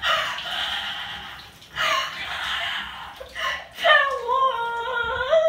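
A girl gasping and shrieking in shock from ice-cold water just dumped over her head, breaking into a high, wavering squeal about four seconds in.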